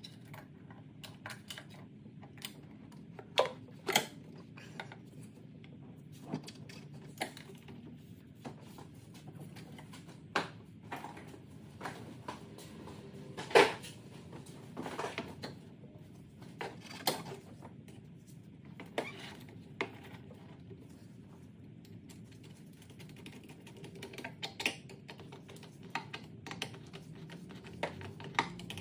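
Hand tools and metal parts clicking and clinking irregularly during work on a car engine, with a louder knock about fourteen seconds in.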